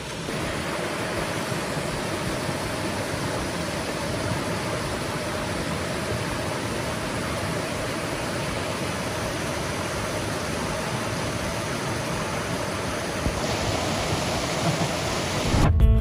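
Small stream splashing down a series of little cascades over rocks: a steady rush of running water.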